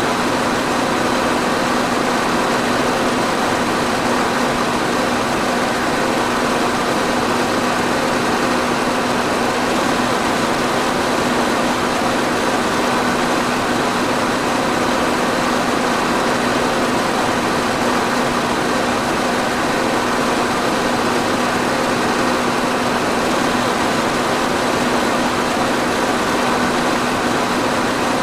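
Electric fan running steadily: an even rush of air over a constant low motor hum, unchanging throughout.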